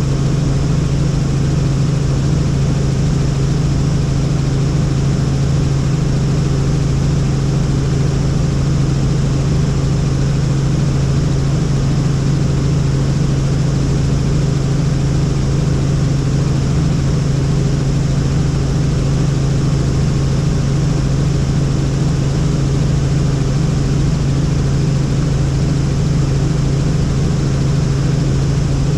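Helicopter in flight: the steady, loud drone of its engine and rotors, with a strong low hum that holds one pitch.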